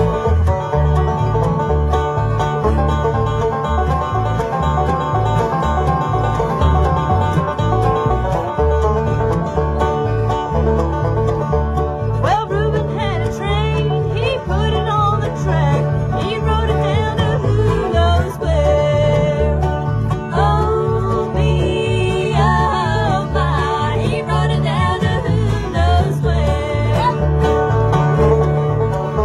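Bluegrass band playing: a driving banjo lead over mandolin and acoustic guitar, with a steady bass beat. A higher melody with sliding notes joins about twelve seconds in and drops out near the end.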